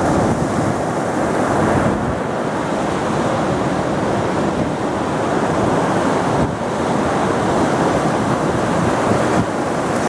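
Ocean surf breaking and washing up a sandy beach, a steady rush, with wind rumbling on the microphone.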